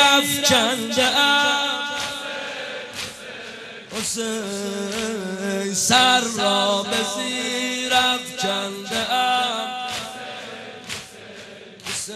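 A male reciter chanting a Persian nohe, a Muharram lament for Imam Hussein, in a reverberant hall. Sharp strikes about once a second keep time under the chant, the mourners beating their chests.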